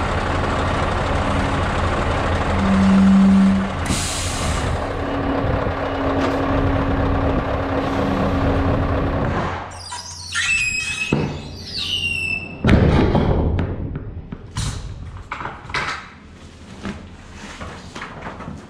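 Scania V8 truck engine idling, with a short hiss of air, like an air brake, about four seconds in. After a cut, squeaks and knocks and one loud thump as large tractor tyres and a ratchet strap are handled in the empty trailer.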